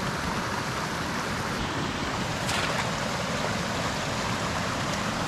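Flowing stream water rushing steadily.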